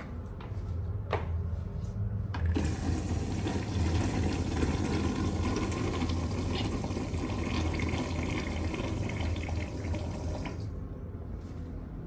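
A restroom fixture flushing. A couple of sharp clicks come first, then a rush of water starts suddenly about two and a half seconds in. The rush runs for about eight seconds and tapers off near the end.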